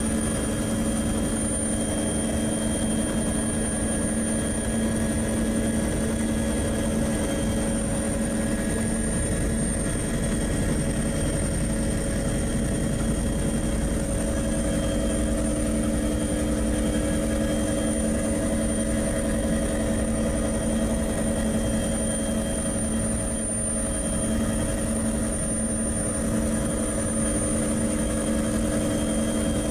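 Steady, unchanging drone of an aircraft in flight: a low rumble with several constant engine and rotor tones, including a thin high whine, holding level throughout.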